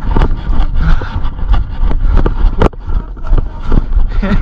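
Wind rumbling on a handheld camera's microphone, with irregular knocks and rustles from handling and movement.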